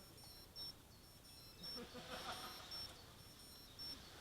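Short, high-pitched electronic beeps repeating about twice a second, some longer than others, over faint distant voices.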